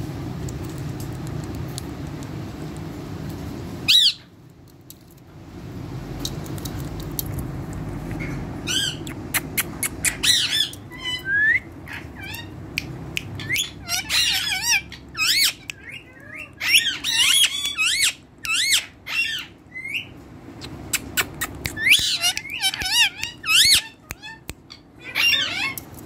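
Caged rose-ringed (Indian ringneck) parakeets squawking and chirping. A single sharp screech comes about four seconds in, then from about halfway short shrill calls come in frequent clusters, sliding up and down in pitch, over a low steady hum that fades after the first few seconds.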